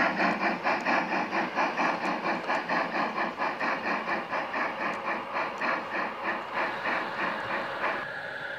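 A gauge 1 (1:32 scale) model train running past on its track: an even, rhythmic beat of about four to five pulses a second that slowly fades as it moves away. Near the end it changes to a steadier running hum.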